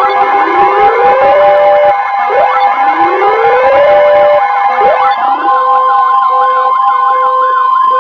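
Loud emergency alert tones: several siren-like sweeps that each rise in pitch and then hold, layered over steady alert tones. The sweeps stop about five seconds in and a steady higher tone carries on alone, leading into a severe thunderstorm warning broadcast.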